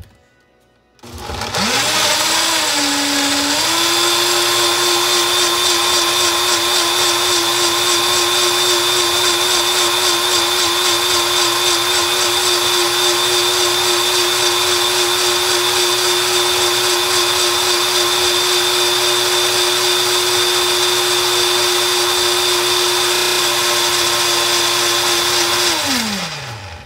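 Personal countertop blender on its high setting puréeing leafy greens, cucumber and water: the motor starts about a second in, dips in pitch for a moment as the blades bite into the whole pieces, then runs at a steady high whine before spinning down near the end.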